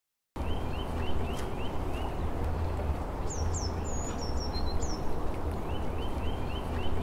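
Outdoor birds calling. A run of short rising chirps comes about a second in and again near the end, with a few higher, sharper calls in the middle, all over a low steady rumble.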